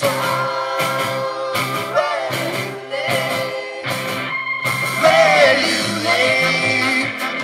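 Live rock band playing a song with a steady beat, singing and a brass section, with the crowd singing along.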